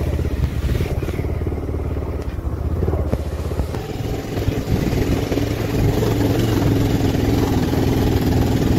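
Motorcycle engine running while being ridden, with a steady hum that comes in more strongly about four seconds in.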